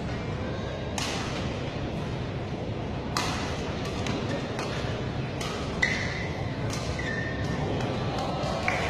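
Badminton rally: rackets striking the shuttlecock with sharp clicks several times, the clearest about a second in and about three seconds in. Court shoes squeak on the floor in the second half, against the steady murmur of a large hall.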